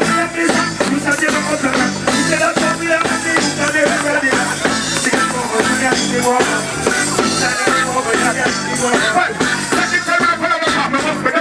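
Live reggae band playing with a steady, upbeat beat, loud throughout.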